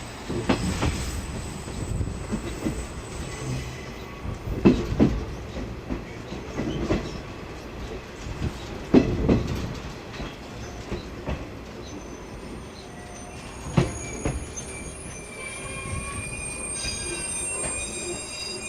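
50-series passenger coach rolling along jointed track, heard from inside the car: a steady rumble with its wheels knocking over the rail joints in pairs every few seconds. From about two-thirds of the way in, a high squeal of several steady tones sets in over the running noise.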